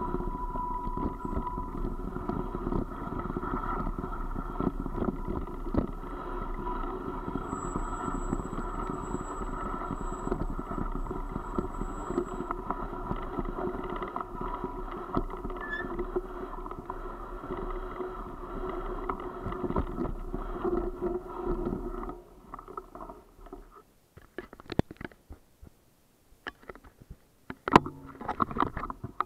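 Steady rumble of riding down a gravel mountain track: tyres crunching over loose stones with wind buffeting the camera microphone. About two thirds of the way through it falls away to a quieter stretch broken by scattered sharp knocks and clicks.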